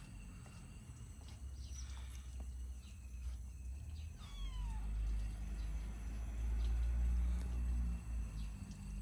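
A kitten gives a short, falling meow about four seconds in, over a steady low rumble.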